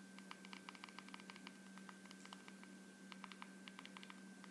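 Quick, faint clicks of a Fire TV Stick remote's buttons being pressed again and again to step across the on-screen keyboard, in two runs with a short pause a little after halfway. A low steady hum runs underneath.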